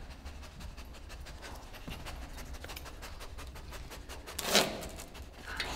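Weimaraner detection dog sniffing in a quick run of short sniffs while working a scent search for bat droppings, with one louder burst of noise about four and a half seconds in.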